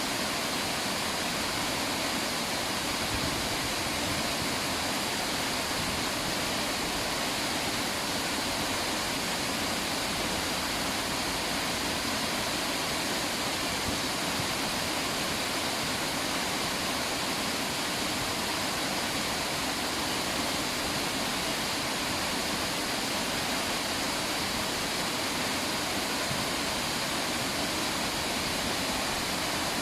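River water rushing steadily, an even wash of flowing-water noise without breaks.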